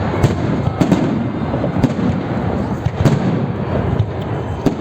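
Fireworks salute going off: irregular sharp bangs every second or so over a continuous rumble of distant bursts.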